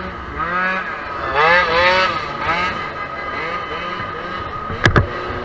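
Scooter engine revving up and falling back in a few quick blips while riding, over steady road noise. Two sharp cracks come close together near the end.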